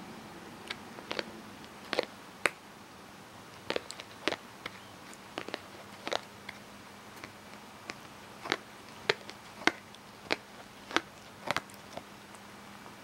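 A cat chewing on the packaging tag of a pet bed: irregular sharp clicks of teeth biting the card, about two a second.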